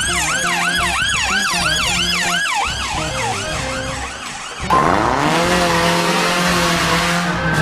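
Police siren wailing fast, about three up-and-down sweeps a second, fading out after about three and a half seconds, over background music. About five seconds in, a sudden louder rushing whoosh with a rising tone cuts in and holds to the end.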